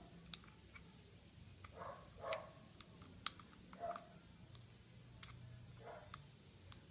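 Scattered, irregular light clicks and taps of hands handling the plastic body of a Syma X5C toy quadcopter, with faint soft rustles between them.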